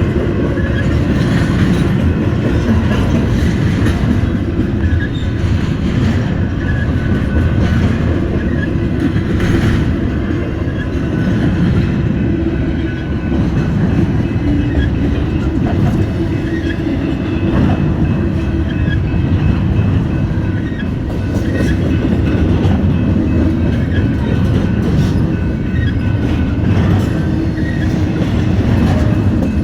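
Norfolk Southern freight train's cars rolling past, a loud steady rumble with scattered clicks of the wheels on the rails.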